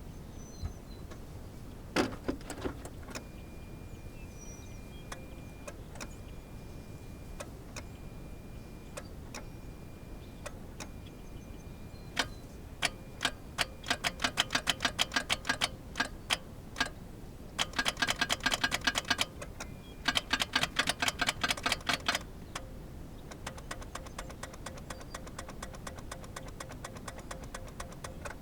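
Geo Metro starter solenoid chattering: runs of rapid clicking, about eight clicks a second, repeated several times while the key is held, and the engine does not crank. This is typical of too little battery voltage. A single knock comes about two seconds in.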